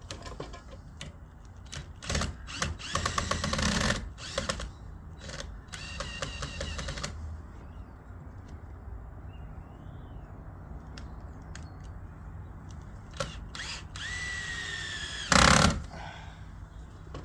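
A small power tool, like a drill, running in short bursts of rapid clicking, with scattered knocks and a falling whine. The loudest event is a short, loud clatter near the end.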